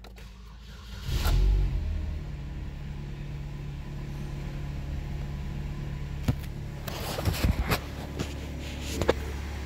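2009 Chevy Cobalt's 2.2-litre four-cylinder engine starting about a second in, flaring up briefly, then settling into a steady idle. A few sharp clicks and knocks sound over the idle near the end.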